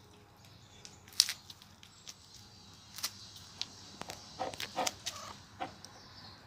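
Hens clucking: a handful of short clucks about four to five and a half seconds in, with a sharp click about a second in.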